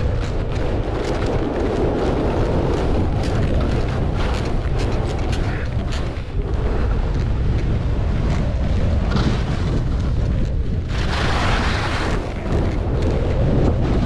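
Heavy wind buffeting the microphone during a fast descent of a groomed ski run, over the hiss and scrape of edges on packed snow. Near the end a louder, brighter skidding scrape lasts about a second.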